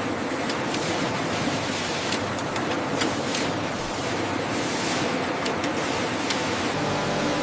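A steady rushing noise with faint scattered clicks, like machinery or running water in a processing plant.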